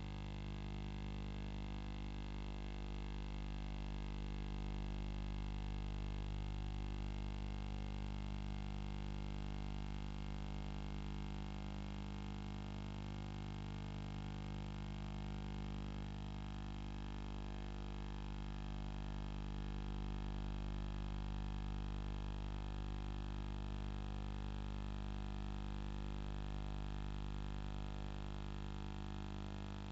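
Steady electrical hum and buzz with many overtones, unchanging in pitch throughout, with only slight slow swells in level.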